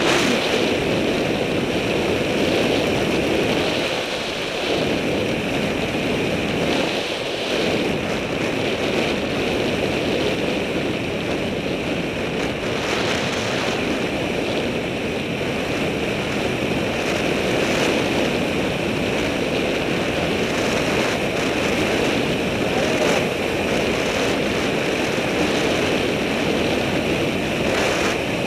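Steady wind rushing over a helmet-mounted camera's microphone on a bicycle moving at speed, easing briefly twice in the first several seconds.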